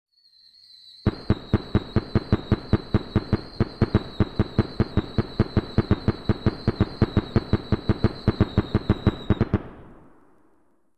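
Fireworks going off in a barrage: a steady high whistle starts, then about a second in a rapid, even run of sharp bangs follows, about six a second. The run stops after some eight and a half seconds, and the sound then fades away.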